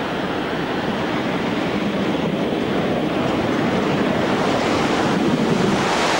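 Steady rushing noise of a collapsing skyscraper's falling rubble and dust cloud sweeping over the street, with wind buffeting the microphone, growing slightly louder.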